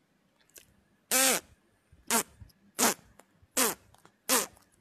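A string of fart noises: five short falling buzzy blasts about every three-quarters of a second, the first one a little longer.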